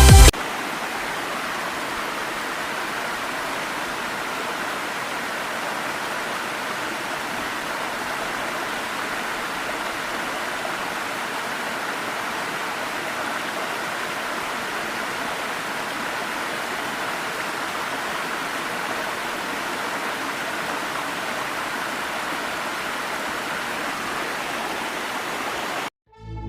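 Dassam Falls' water pouring over rock: a steady, even rush of falling water that cuts off suddenly near the end.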